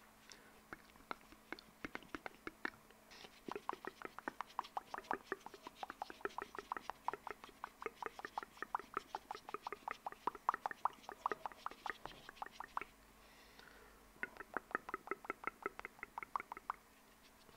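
Close-miked ASMR mouth sounds: quick, wet tongue-and-lip clicks at about five a second. They pause about thirteen seconds in, then come back for a shorter run.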